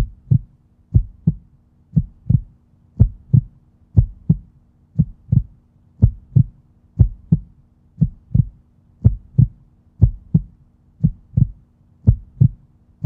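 Heartbeat-like sound effect: pairs of short, low thumps, lub-dub, repeating evenly about once a second.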